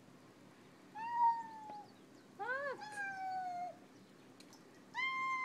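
Domestic cat giving several long, drawn-out meows, the last one held at a steady pitch. It is a housecat crying to get out to another cat.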